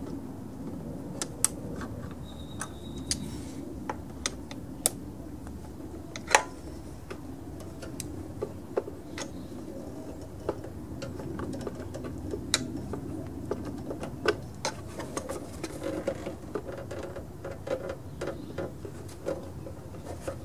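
Irregular small clicks and light taps of hands working the fuel hose off the fuel pump on a Snapper riding mower's engine, with a sharper click about six seconds in, over a low steady hum.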